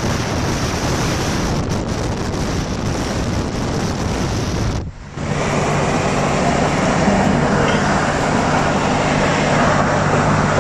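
Wind rushing over the microphone with road noise from a car driving at freeway speed. About halfway through the sound drops out briefly, then a steady low engine hum runs under the road noise.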